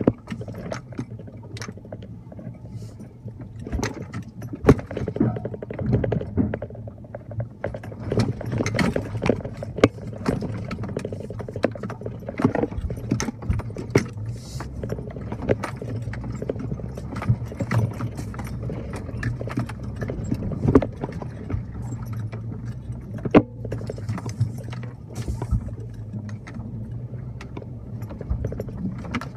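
Toyota Tacoma pickup crawling along a rough dirt trail, heard from inside the cab: a steady low engine hum under frequent irregular knocks, clinks and rattles as the truck jolts over the uneven ground.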